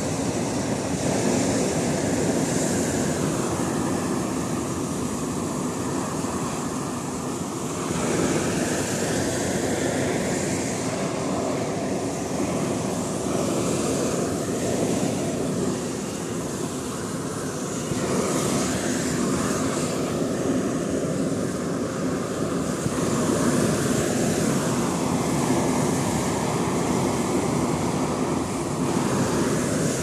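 Continuous roar of hot air balloon equipment at launch: propane burners firing and inflation fans running, steady throughout with small shifts in level.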